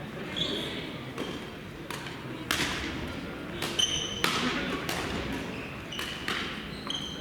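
Badminton rally in a large gymnasium hall: sharp racket hits on the shuttlecock every second or so, with shoes squeaking on the court floor between them and voices in the background.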